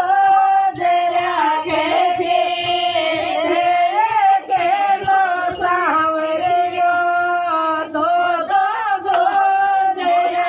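Group of women singing a Shekhawati folk song together, with long held, wavering notes, over a steady percussive beat.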